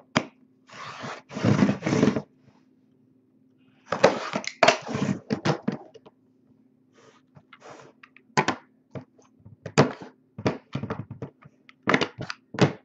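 A sealed trading-card box being opened by hand: two spells of scraping and rustling of packaging, then a run of sharp clicks and knocks as the hard plastic card cases are handled.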